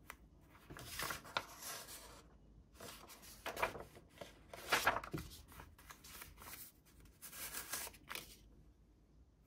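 Repeated tearing and crinkling of material being handled, in about five separate noisy strokes. The loudest come about three and a half and five seconds in.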